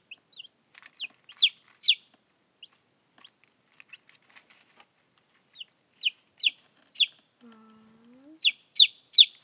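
Day-old Brahma chicks peeping: short high peeps that fall in pitch, a few loud ones about a second and a half in, scattered ones after, then a quicker run of loud peeps near the end.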